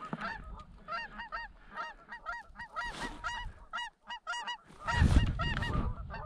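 Geese honking: many short, overlapping calls in a quick chatter. About five seconds in, a louder rush of rustling covers them as spruce boughs brush past the microphone.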